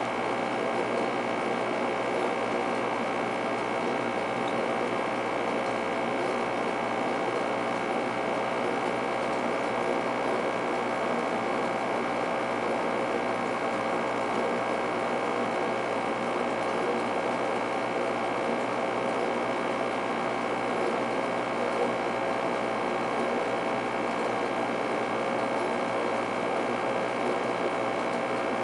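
Steady machine hum with several constant tones over a fine whirring noise, unchanging throughout.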